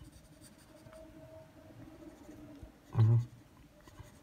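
Faint scratching of a lead-holder pencil's graphite shading on drawing paper. A man's voice makes one short sound just after three seconds in.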